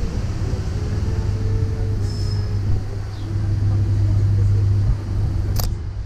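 Steady low rumble of an electric unicycle rolling along paved sidewalk, tyre noise mixed with wind on the microphone. There is a single sharp click about five and a half seconds in.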